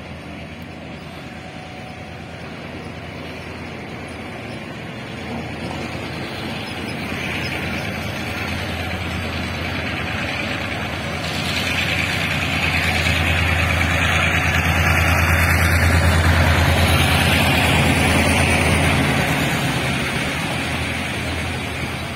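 Taiwan Railways diesel locomotive hauling a freight train, approaching and passing close by: a low engine drone and the rumble of wheels on the rails grow steadily louder, peak past the middle, then ease a little as the flat wagons roll past.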